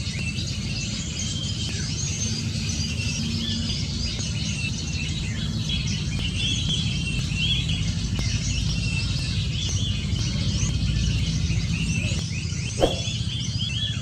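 Many small birds chirping continuously over a steady low rumble, with one short, louder squeak about thirteen seconds in.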